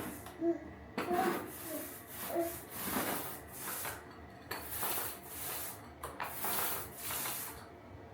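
Repeated rubbing strokes of a hand tool worked back and forth across a surface, about one or two a second, stopping shortly before the end.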